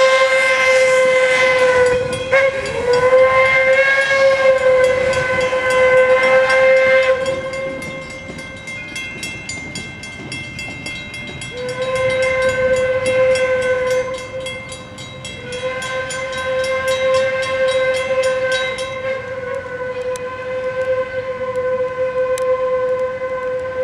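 Steam locomotive whistle blowing a series of blasts: long, long, short, long, the pattern sounded for a grade crossing. It grows fainter as the train moves away, with a fast regular clicking from the passing cars under the first part.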